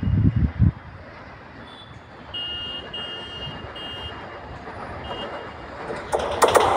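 Vande Bharat Express electric trainset approaching head-on: a faint rush at first, then from about six seconds in the noise of the arriving train rises sharply into a loud rush with a rapid clatter of clicks. Short high beeps come and go in the middle.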